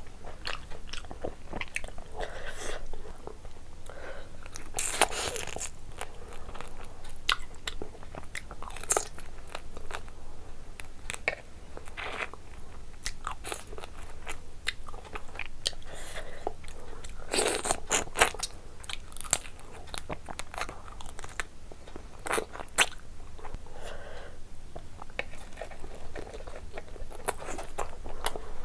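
Close-miked eating: wet chewing and crunching of curried prawns and rice eaten by hand, full of sharp mouth clicks, with louder crunches every few seconds.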